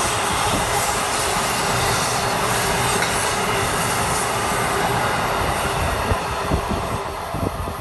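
Amtrak passenger train of Amfleet coaches rolling past on the rails and moving away: a steady rumble of steel wheels on track with a thin wheel squeal. A few sharp wheel clicks come near the end as the last cars pass, and the sound begins to fade.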